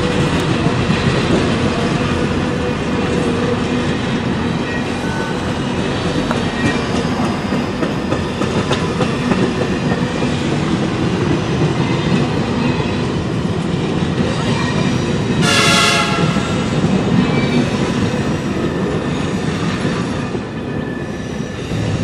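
Passenger cars of a train rolling past on the rails: a steady rumble and rattle of wheels on track that eases off near the end as the last car goes by. A brief high-pitched squeal cuts in about two-thirds of the way through.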